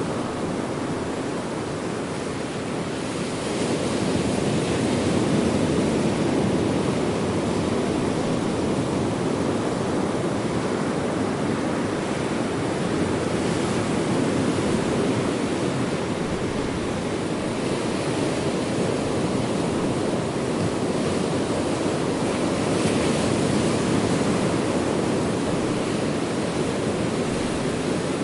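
Ocean surf: a steady wash of breaking waves that swells a little now and then.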